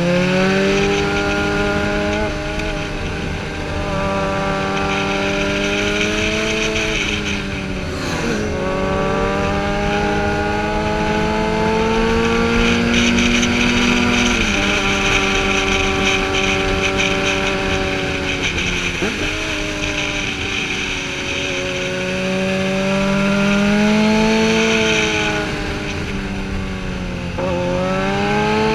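Sportbike engine heard from the rider's own bike at speed, its note climbing and then dropping sharply several times as the revs change, over steady wind rush.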